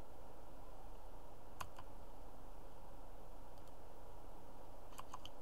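Computer mouse clicks over a low steady room hum: a single click about a second and a half in, then a quick double click near the end.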